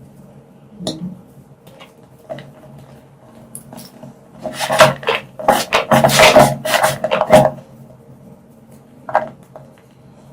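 Purple-dyed gym chalk being crushed, crunching and crumbling: a couple of single crunches, then a dense run of crunches lasting about three seconds in the middle, and one more near the end.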